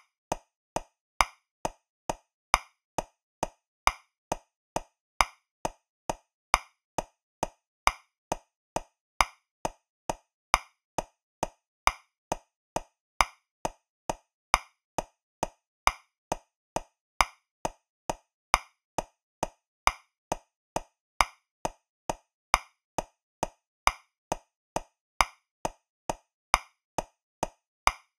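Metronome clicking at 135 beats per minute in 3/4 time, with short, evenly spaced clicks a little over two a second. Every third click is louder, accenting the first beat of each bar.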